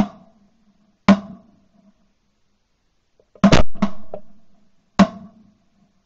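About six shotgun shots at geese, heard from a camera mounted on the gun barrel. Each is a sharp crack with a short ringing tail, and two come almost together about three and a half seconds in.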